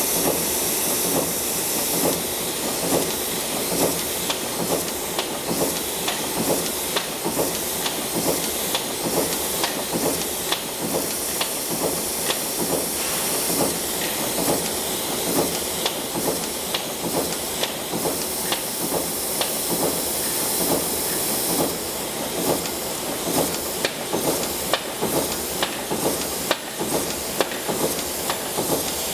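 Kugler automatic sheet punching machine on a test run: a steady hiss under a regular clack of punch strokes, about three every two seconds.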